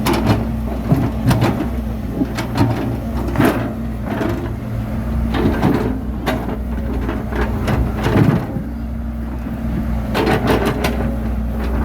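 Bulldozer's diesel engine running steadily under load, with irregular metallic clanks and knocks from the tracks and blade working soil.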